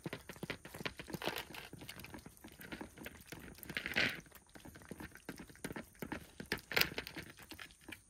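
Cats eating, a dense run of small irregular crunching clicks, with two louder brief rustles about four and seven seconds in.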